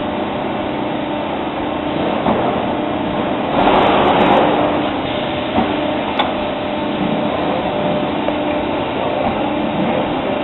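An Amada CNC press brake and robotic bending cell running, with a steady machine hum. A louder rushing surge comes about three and a half seconds in and lasts about a second, and a sharp click follows a couple of seconds later.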